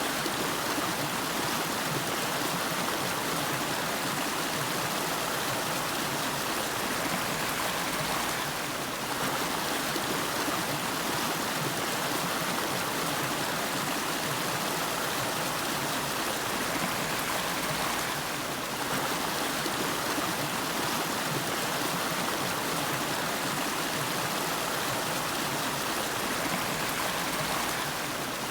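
Steady rushing and burbling of a shallow river flowing over rocks, even and continuous throughout.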